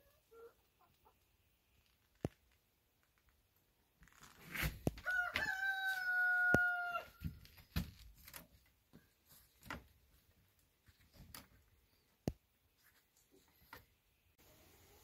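A rooster crows once, about five seconds in: a single held call of about two seconds. Scattered sharp clicks and knocks sound around it.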